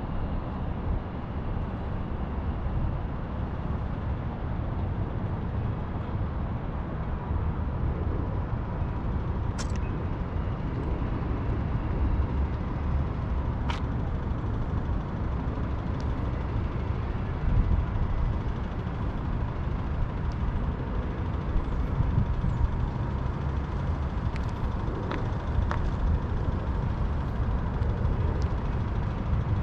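Outdoor ambience of a steady low rumble from distant road traffic and wind on the microphone, with a few faint scattered clicks.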